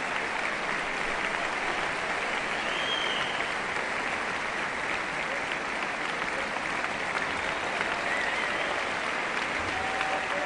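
Steady applause from a large audience, many hands clapping at once.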